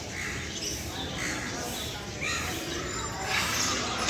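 Indistinct people's voices in the background with birds squawking and chirping in short, repeated calls.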